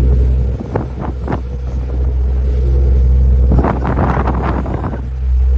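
Tour boat's engine running with a steady low drone, wind on the microphone, a few short knocks about a second in, and a louder rushing noise about four seconds in.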